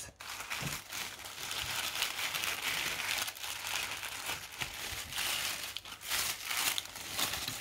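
Thin tissue paper wrapping crinkling and rustling as it is unfolded by hand, a continuous run of small crackles.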